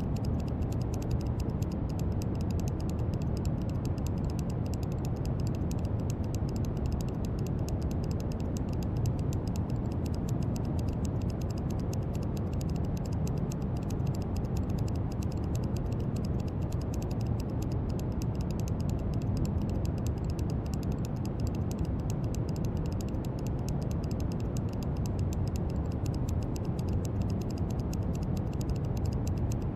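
Brown noise: a steady, deep rushing hiss weighted heavily to the low end, with a fine faint crackle in the highs.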